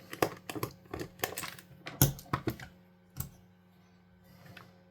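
Screwdriver working Phillips screws out of the plastic back shell of a Sega Mega Drive controller: irregular light clicks and taps, which die away after about three seconds.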